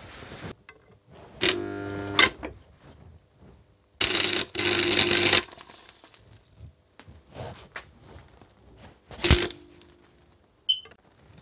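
Stick-welding arc from an ESAB Bantam TBH 140 transformer welder on black steel pipe, crackling with a buzzing hum. It comes in four bursts: the longest, about a second and a half, starts about four seconds in, and the others are shorter, as the arc is struck and goes out again.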